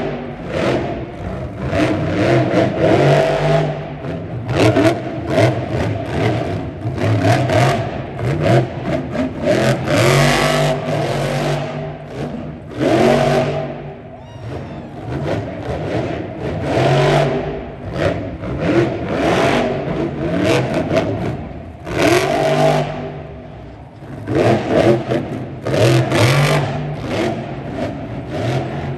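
Monster truck's supercharged V8 engine revving hard in repeated bursts, the pitch climbing and falling again and again, with a few brief lulls.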